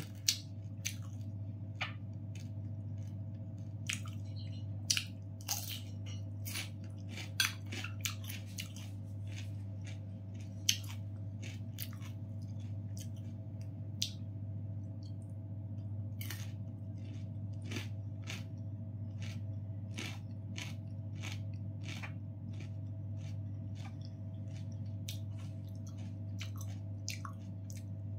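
Close-up chewing of crunchy raw cucumber: crisp crunches and wet mouth clicks, thick in the first ten seconds and sparser after. A steady low hum runs underneath.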